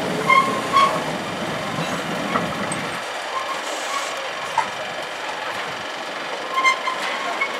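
Cement tank wagons of a freight train rolling past on the rails, with a steady clatter of wheels and a few short, high squeals. A low rumble drops away about three seconds in.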